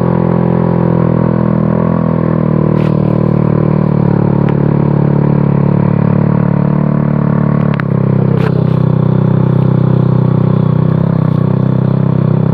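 Automatic motor scooter's small engine running steadily while riding, with a few sharp knocks; it gets slightly louder about eight seconds in.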